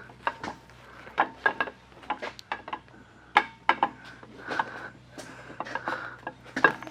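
Irregular light metal clinks and knocks as a camshaft is worked into the cam bearings of a Chevy 305 small-block V8, the journals catching on the bearings as it goes in.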